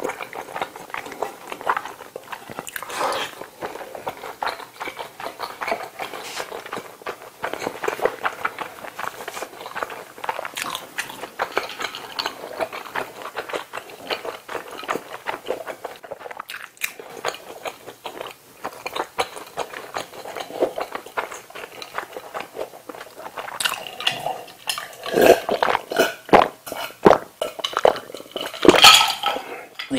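Close-miked wet chewing and mouth sounds of a man eating spicy tteokbokki rice cakes in sauce. Later he drinks cola from a glass with ice, with louder swallowing sounds near the end.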